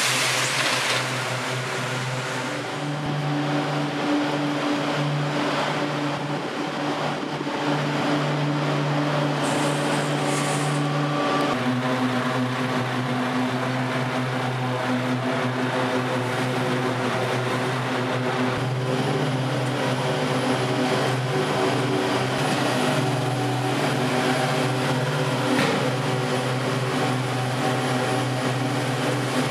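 Heavy diesel road-building machinery running steadily: the engines of a concrete paver, dump truck and excavator at a concrete paving site, a continuous drone that shifts in pitch about a third of the way in.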